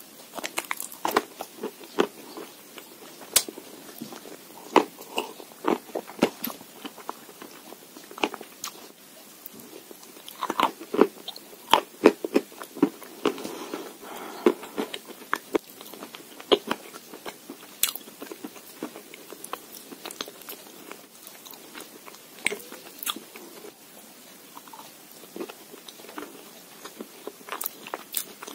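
Close-up crunching of chalk and Uzbek clay being bitten and chewed: a run of sharp, irregular crunches and cracks, thickest about ten to fifteen seconds in.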